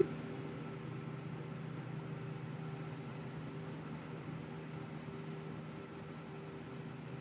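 A steady low motor hum with a faint held whine above it, and a single short click right at the start.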